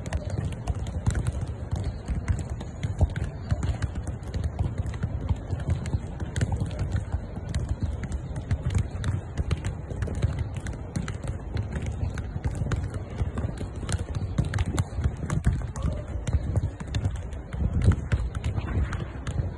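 Footballs being kicked and bouncing on artificial turf: many irregular thuds, several a second, over a steady low rumble.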